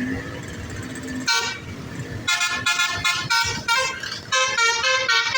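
A bus's Basuri telolet multi-tone horn: one short blast about a second in, then from about two seconds in a quick melody of short, changing notes.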